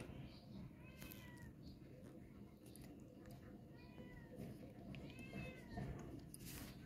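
Faint animal calls: three short calls that rise and fall in pitch, about a second in, about four seconds in and about five seconds in, with a few clicks near the end.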